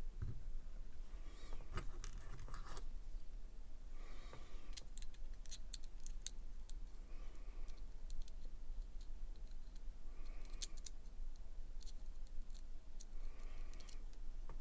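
Small metal parts of a disassembled pocket knife being handled and cleaned: scattered light clicks and taps, with short rubbing strokes every few seconds.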